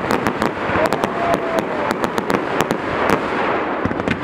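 Professional fireworks display: a rapid, irregular run of sharp bangs and crackles from bursting shells over a dense crackling haze, with a faint short whistle about a second in.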